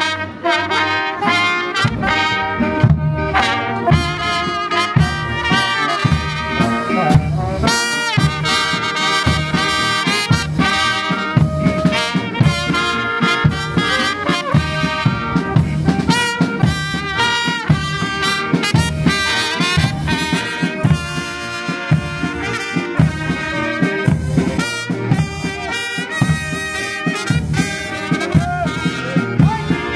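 Brass band playing a march, with trumpets and trombones over a steady drum beat.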